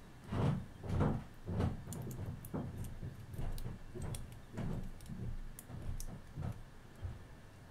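Close handling noise of the small black plastic frame and flex ribbon cable of a GoPro Hero5 Session: fingers rubbing and bumping the parts, with faint light clicks. The bumps are loudest in the first couple of seconds.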